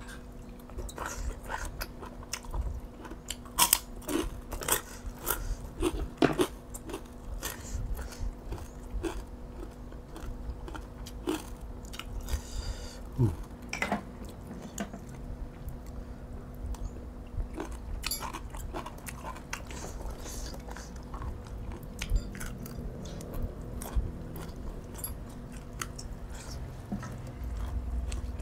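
A person eating close to the microphone: chewing, with irregular sharp crunchy bites, loudest a few seconds in. The food is boiled field snails eaten with spicy pounded green-bean salad and crispy pork rinds.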